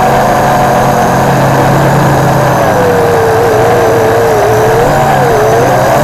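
WLToys V262 quadcopter's motors and propellers whining loudly close to the onboard camera. The whine wavers in pitch, sags lower past the middle and then rises again.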